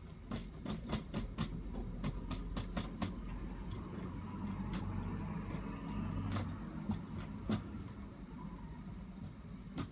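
Dry-erase marker writing on a whiteboard: a quick run of sharp taps and short scratchy strokes as figures and brackets are drawn, over a steady low rumble.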